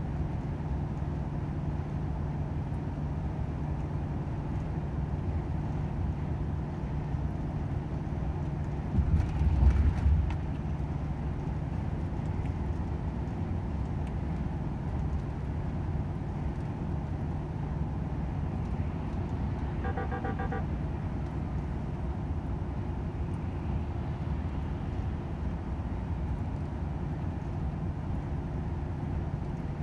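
Volvo FH 500 truck's diesel engine running steadily at cruise, a constant low drone with road noise. About nine seconds in there is a brief, louder low rumble, and about twenty seconds in a short, quick series of pitched beeps.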